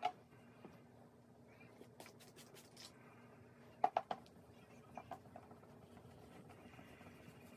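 A hand rubbing a plastic car headlight lens: faint scratchy rubbing with a few light clicks and knocks, the loudest a quick cluster of three about four seconds in.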